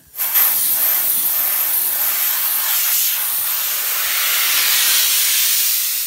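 Compressed-air blow gun giving a loud, steady hiss as it blasts debris out of the fins of a window air conditioner's coil.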